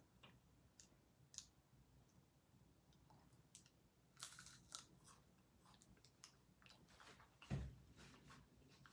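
Faint chewing of a piece of chocolate, with a scatter of soft mouth clicks, and a dull thump about seven and a half seconds in, the loudest sound.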